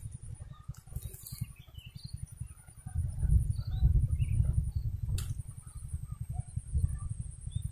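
Wind buffeting the microphone with an uneven low rumble, over faint scattered bird chirps. A single sharp click comes about five seconds in, and a thin, high, steady whine runs underneath.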